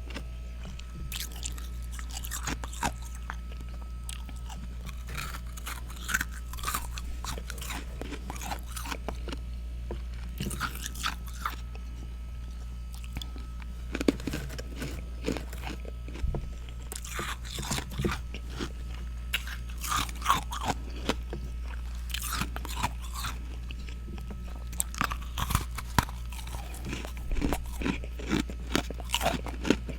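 Close-up crunching and chewing of hard-and-soft freezer frost: irregular sharp crunches between the teeth, coming thicker near the end, over a steady low hum.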